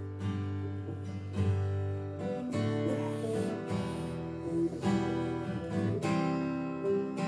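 Acoustic guitar strumming chords over a steady low bass, the chords changing every second or two: the instrumental intro of a worship song before the singing comes in.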